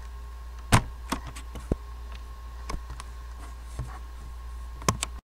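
Several short, sharp clicks and knocks, irregularly spaced, over a steady low electrical hum. The sound cuts off abruptly near the end.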